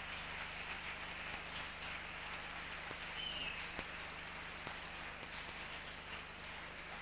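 Audience applause: many hands clapping in a steady, dense patter that eases slightly near the end.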